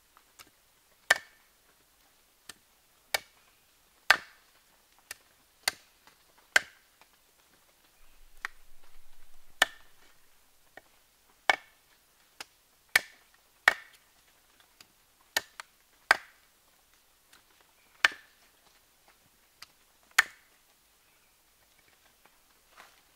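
Large knife chopping through chicken meat onto a cutting board: about twenty sharp knocks at uneven intervals, roughly one a second. A short stretch of softer rustling comes about eight seconds in.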